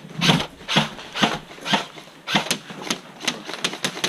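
Footsteps crunching through dry brush and leaves at a walking pace, about two a second. From about two seconds in, a quick run of sharp clicks, several a second, typical of an airsoft rifle fired on semi-auto.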